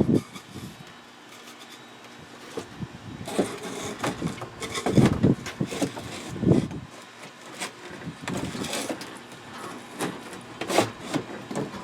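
Wood being handled: irregular rubbing, scraping and knocks of a thin luan panel and its framing, with a sharp knock near the end.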